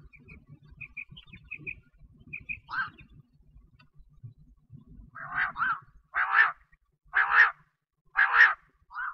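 Quail calling. A few soft high peeps come early, then from about five seconds in there are loud, harsh calls repeated about once a second. A low rumble of camera handling runs under the first half.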